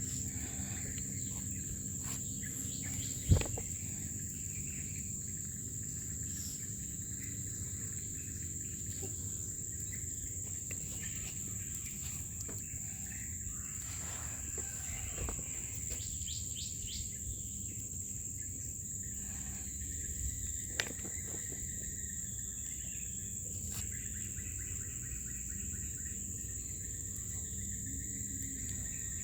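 Steady high-pitched insect drone, like crickets, over low outdoor background rumble, with a sharp click about three seconds in and a fainter one about twenty seconds in.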